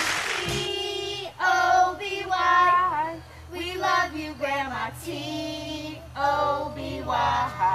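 A small group of children singing together unaccompanied, in short phrases with brief breaks between them. The tail of a recorded song fades out in the first moment.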